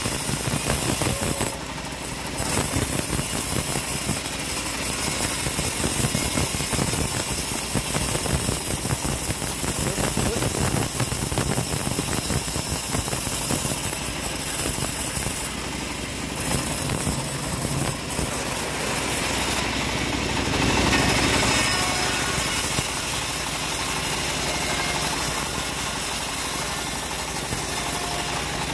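Homemade bandsaw mill running steadily, its blade sawing through hard jowar (johar) wood to cut it into 6×12 beams.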